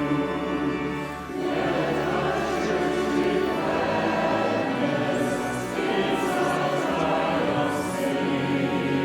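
Choir singing a slow hymn-like piece in held chords, with accompaniment.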